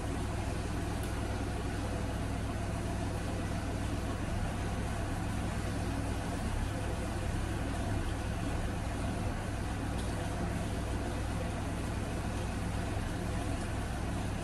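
Steady low rumble and hiss of a tabletop stove burner heating a moka pot, unchanging throughout.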